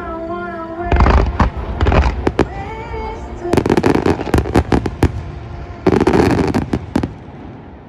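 Fireworks going off: deep booms about one and two seconds in, then two spells of dense rapid crackling, the second near the end, before the sound dies away. Music with held notes plays under the first few seconds.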